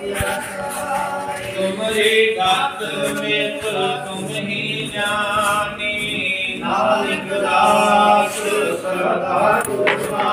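Sikh devotional singing (kirtan): voices singing hymns in long, held phrases.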